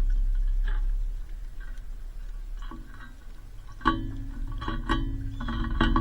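Background music of gently plucked acoustic guitar notes; it thins out to a quieter stretch, then plucked notes pick up again about four seconds in.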